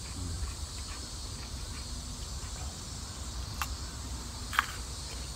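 Steady high-pitched insect chorus, with two short crisp crunches about three and a half and four and a half seconds in, from bites into a raw cucumber.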